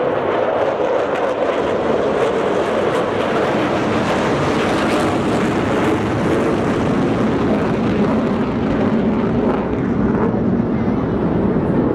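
Formation of military jet aircraft flying over, a loud steady rush of jet engine noise.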